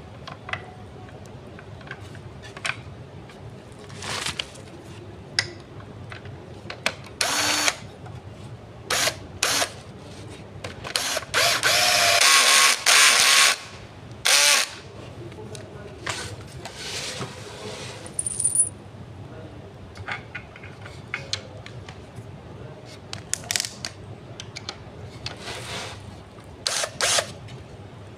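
Cordless drill driver driving screws into a wooden chair frame in short bursts, the longest run lasting about two seconds a little before halfway, amid clicks and knocks of the parts and tools being handled.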